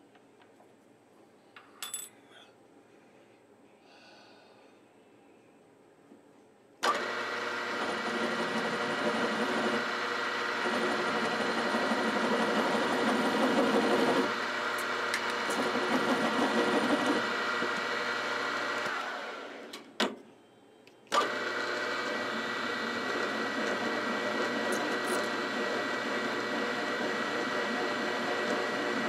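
Milling machine spindle switched on about a third of the way in, running steadily with a hum of several steady tones while a boring bar works in the bore of a casting. Near two thirds of the way it is switched off and runs down, there is a sharp click, and about a second later it starts again abruptly and runs on.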